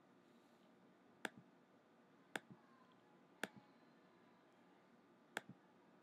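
Four clicks of a computer pointing device's button against near silence, each a sharp press followed a split second later by a softer release.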